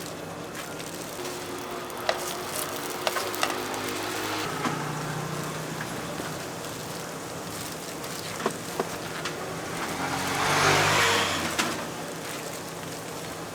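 Street ambience with a motor vehicle's engine running: a low hum that shifts pitch about four and a half seconds in. A few sharp clicks come through it, and a rush of noise swells up and fades near the end.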